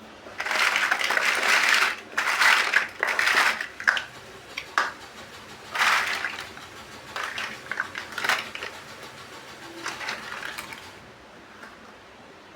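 Small plastic building bricks clattering and rattling against each other in several loud bursts over the first four seconds and once more around six seconds, then a scatter of lighter single clicks and taps.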